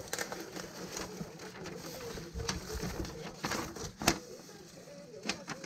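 Cardboard box and sheets of paper being handled and unfolded by hand: rustling and crinkling with sharp paper crackles, the loudest a snap about four seconds in. Faint cooing runs underneath.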